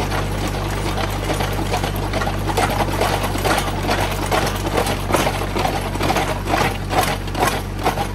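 Tractor engine running steadily under load, driving a PTO post hole auger that bores through asphalt grindings and fill. Irregular crunching and scraping from the auger bit grinding on stones grows busier in the second half.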